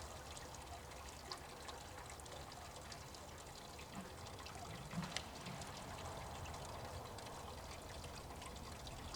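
Faint steady trickle of running water, with a few scattered small ticks.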